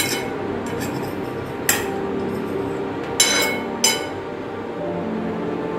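A table knife clinking sharply against a ceramic plate several times while cutting through a slice of bread, over background music.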